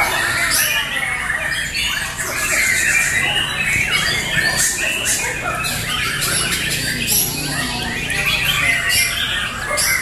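Many caged white-rumped shamas (murai batu) singing at once, a loud, dense, overlapping chorus of whistles, chirps and harsh calls that never pauses.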